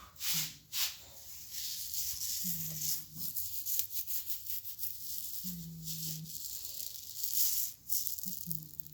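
Neck joints being cracked: a run of crackling pops and clicks over a rasping hiss, with a short, steady low hum four times.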